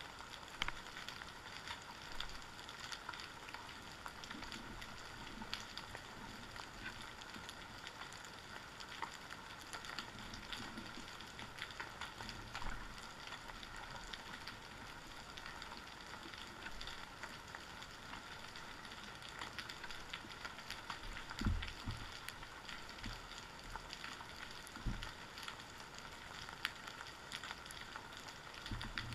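Underwater ambience picked up by a camera on the seabed: a steady crackling hiss full of scattered small clicks, with two brief low thumps late on.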